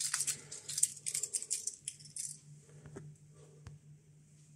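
Handling noise of a cable and its metal four-pin connector, rattling and rustling for about two seconds and then dying away to a couple of light clicks.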